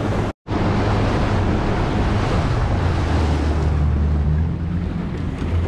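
Small fishing boat under way on its motor: a steady low engine drone with water rushing past the hull and wind buffeting the microphone. The sound cuts out for a split second about half a second in.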